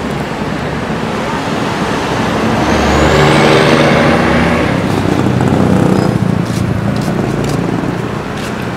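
Heavy street traffic passing close by: a big tanker truck's engine grows louder and is loudest from about three to six seconds in, then eases off as a bus follows.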